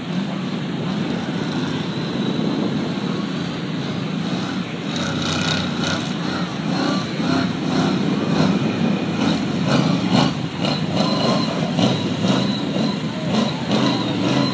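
Monster bus's engine running as it drives across grass, getting louder as it comes closer, with repeated uneven surges from about five seconds in.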